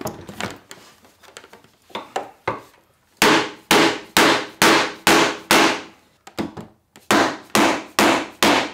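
Rubber mallet striking the laminated panels of a Volkswagen Westfalia cabinet to knock a piece loose from its joints. A few light taps come first, then steady, hard blows about two a second from about three seconds in, with a short break past the middle.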